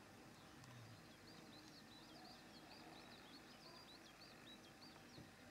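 Near silence, with a faint bird singing a rapid string of short high chirps from about a second in until near the end.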